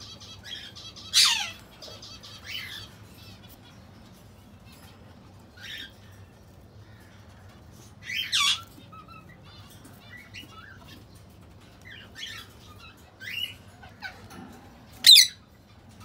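Ringneck parakeets squawking: short, harsh, high calls every couple of seconds, the loudest one near the end.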